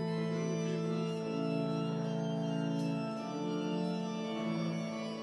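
Organ playing slow, sustained chords that change a few times, with a few faint clicks.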